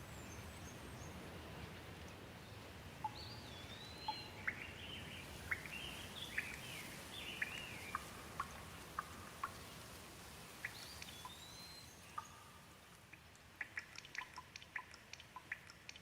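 Soft, steady rain with water dripping, and a bird calling twice in short gliding whistles. Toward the end the rain hiss thins and separate drips stand out.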